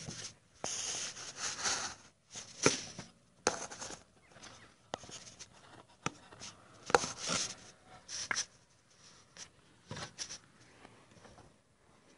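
Handling noise: irregular rubbing and scraping with several sharp clicks and knocks, from fingers moving over the camera and the car's body panel right at the microphone.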